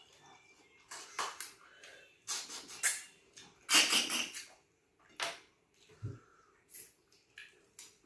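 Close-up eating sounds: wet mouth smacking and slurping of soup in a string of short bursts, the loudest about four seconds in.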